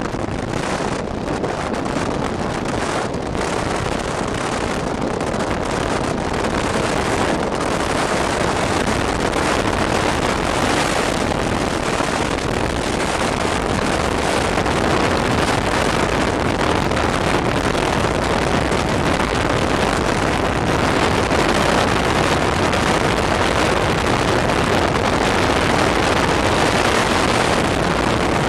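Road noise from a fast-moving vehicle: tyres on asphalt and a steady rush of wind over the microphone, slowly getting a little louder.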